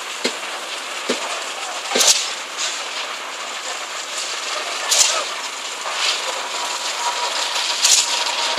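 Concrete boom pumps and site machinery running during a concrete pour: a steady mechanical din with a sharp clank about every three seconds, the regular beat of the pumps' strokes. Workers' voices are faintly mixed in.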